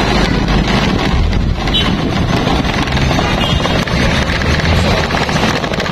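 Loud, steady low noise of wind buffeting the microphone over street traffic.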